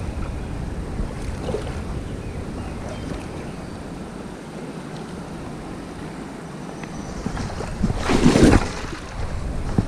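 Steady rush of flowing spillway water, with wind buffeting the microphone. A brief, louder burst of noise comes about eight seconds in.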